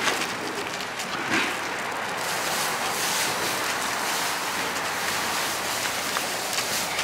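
A gloved hand squishing and tossing shredded vegetables through thick wet batter in a metal bowl, over a steady hiss.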